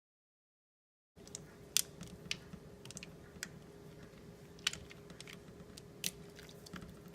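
About a second of dead silence, then a faint steady hum carrying a low held tone, broken by scattered sharp clicks and taps, like hard objects being handled at a microwave.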